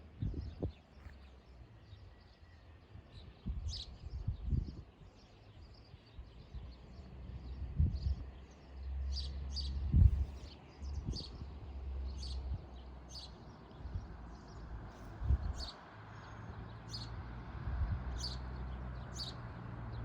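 Small birds chirping outdoors, short high calls repeated irregularly and more often in the second half, over a low rumble with occasional dull thumps.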